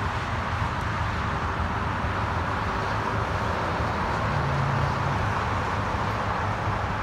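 Toyota GR Supra idling, a steady low exhaust hum; a slightly higher hum joins briefly about four seconds in.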